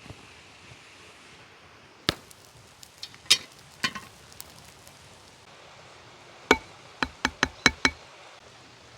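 Chopping: three separate sharp knocks, then near the end a quick run of six, about five a second, some with a short ringing tone.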